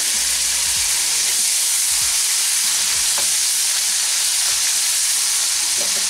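Onion frying in hot mustard oil in a metal kadai: a loud, steady sizzle, with a metal spatula stirring through it.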